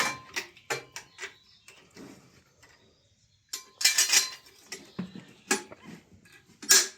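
Metal hand tools clinking and clanking: a run of sharp clicks and knocks, busier about halfway through, with a loud clank near the end.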